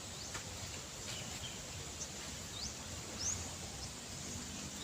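Outdoor ambience: a steady low background noise with several short, high bird chirps scattered through it, and one brief click near the start.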